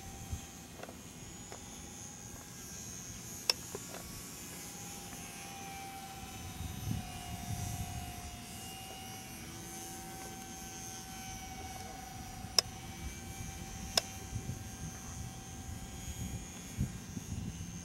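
Faint drone of electric radio-controlled model airplanes' motors and propellers: a thin tone that slowly drifts in pitch as the planes fly about. Low rumbling noise comes and goes, and there are a few sharp clicks.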